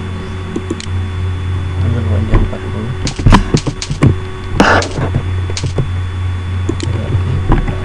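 Computer keyboard keystrokes and mouse clicks, a scattering of sharp taps bunched in the middle, over a steady low electrical hum.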